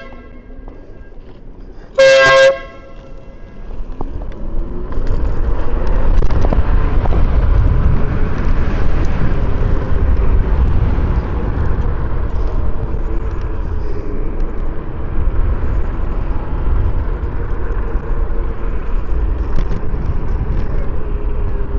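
A single loud blast, about half a second long, from the dual electric air horns on a Yume Predator electric scooter, about two seconds in. From about four seconds in, a steady low rumble of wind and riding noise takes over.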